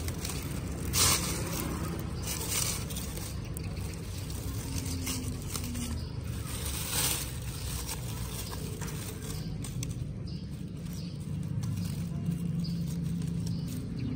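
Rustling and scraping of discarded chillies being gathered up by hand, with a few short sharper knocks among them, over a low steady hum.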